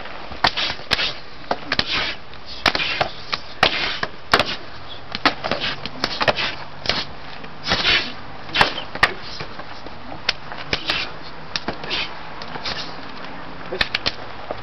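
Karate partner drill by many pairs at once: an irregular scatter of sharp slaps and smacks as bare forearms and bodies strike and block against each other.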